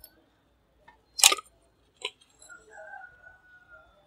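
Mixer grinder motor being pulled apart by hand: a sharp metallic click about a second in and a smaller one about two seconds in as the field-coil housing comes off the armature.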